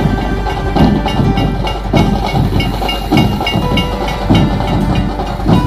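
Loud drum-driven music: a heavy beat about once a second over a fast, dense rattling roll, with held and repeated higher notes on top.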